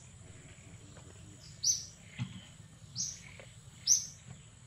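A bird chirping in the forest canopy: short, high chirps that drop slightly in pitch, roughly one a second, starting about a second and a half in.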